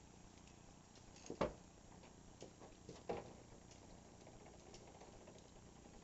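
Near silence with a few faint, short clicks: the sharpest about one and a half seconds in, another about three seconds in.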